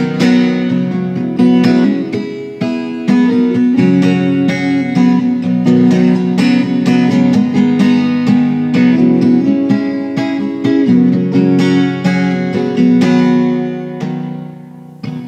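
Acoustic guitar strumming and picking chords in an instrumental passage of a song, with no singing; the chords ring down briefly near the end before a fresh strum.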